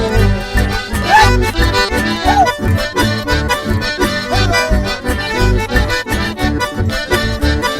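Chamamé music: an accordion playing a lively tune over a steady, pulsing bass beat.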